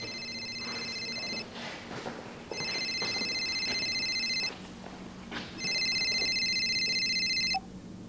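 Telephone ringing with an electronic ring of high, trilling tones. The rings last about two seconds each, with a pause of about a second between them. One ring ends about a second and a half in, and two more full rings follow.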